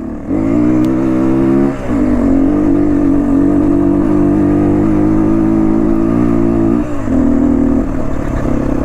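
Motorcycle engine running under load while climbing a steep uphill, its note steady, with a brief dip about two seconds in and another near seven seconds.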